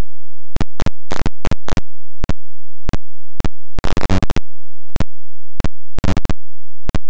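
Loud steady electrical buzz from VHS tape playback, broken by irregular sharp crackles and pops, with two longer clusters of crackling around four and six seconds in. This is the noise of a blank, unrecorded stretch of tape at the end of the recording.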